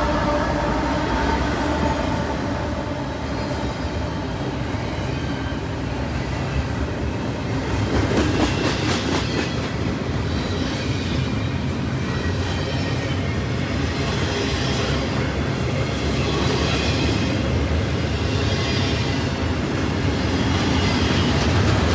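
A CSX GE ES44AH diesel locomotive, the train's mid-train helper, passes close by; its engine tones fade within the first couple of seconds. Double-stack container well cars follow, rolling by with a steady rumble, wheel clatter and brief high squeals now and then.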